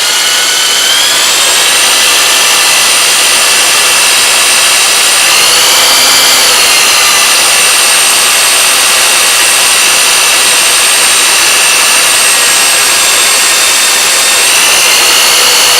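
Electric drill running in reverse with a large bit, slowly melting its way through a plastic computer case: a loud, steady motor whine whose pitch wavers briefly about five seconds in and rises near the end.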